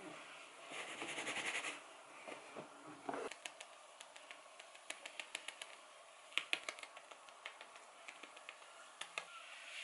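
Irregular light clicks and taps, some single and some in quick clusters, over a low room hiss, with a short rushing hiss about a second in.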